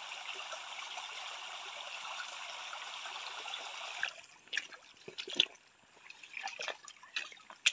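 Shallow stream water trickling steadily. About four seconds in this gives way to a hand net being dunked and swished through the water, a few irregular splashes and sloshes, the sharpest near the end.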